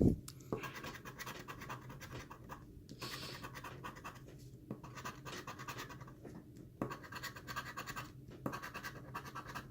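Scratch-off lottery ticket being scratched in bouts of rasping strokes, with short pauses between them, as the coating is cleared from the play area. A thump right at the start.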